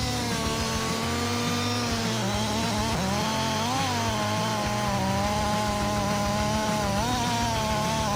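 Gasoline chainsaw running at high speed, cutting wood, its pitch steady apart from brief wobbles about four and seven seconds in.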